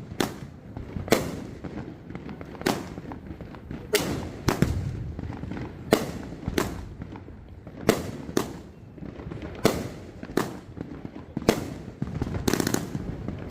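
A 30-shot consumer firework cake firing, a sharp bang about every second, several coming in close pairs, with crackling between the reports.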